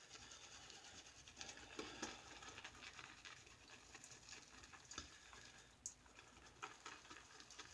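Boar-bristle shaving brush being swirled on a puck of shaving soap to load it: a faint, irregular patter of small ticks and scratches from the bristles working the soap.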